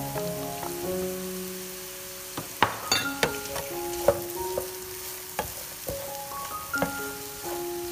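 Sliced sausages, diced carrots and onions sizzling in oil in a non-stick frying pan, with a wooden spatula stirring and knocking against the pan from about two and a half seconds in. A light melodic background tune plays over it.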